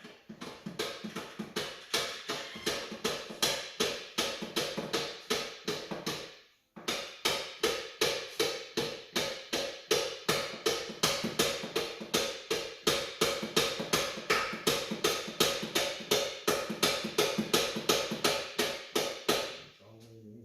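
Background music with a steady, fast drum beat, about four beats a second. It breaks off briefly about six seconds in, then fades out near the end.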